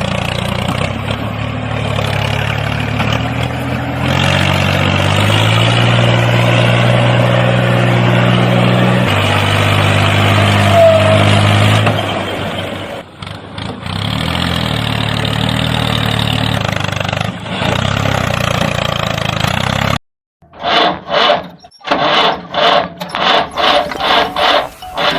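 Engine running with a low, steady hum that steps up and down in pitch and dips briefly about thirteen seconds in, then cuts off suddenly near the end. Short rhythmic rasping strokes, about two a second, follow.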